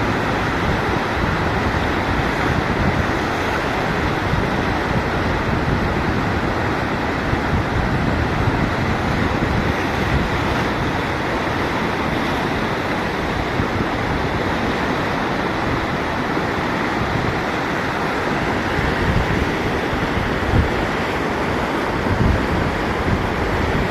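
Floodwater rushing in a swollen mountain river, a steady, unbroken rush of noise.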